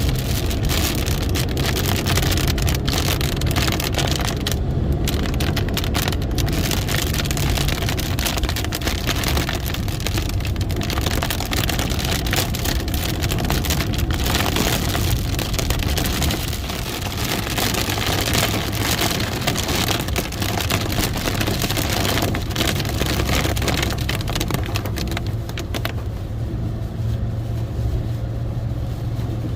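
Heavy rain mixed with hail pelting down, a dense, continuous clatter of impacts, over a steady low hum.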